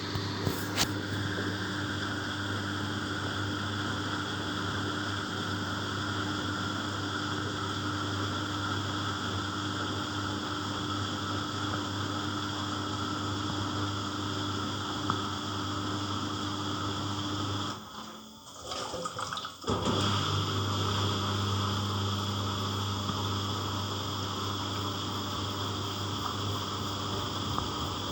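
Samsung washer-dryer in its rinse cycle: a steady hum with water rushing. It cuts out for about two seconds a little past the middle, then starts again slightly louder.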